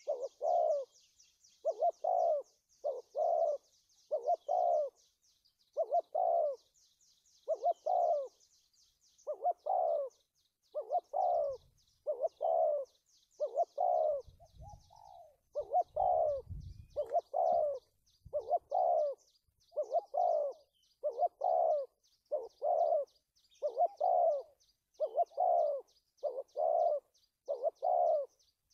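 Spotted dove cooing over and over, short pitched coos in quick runs, in the stammering pattern of a wild-caught bird with a two-to-three-note opening. Faint rapid high chirping runs behind it, and a low rumble comes in about halfway through.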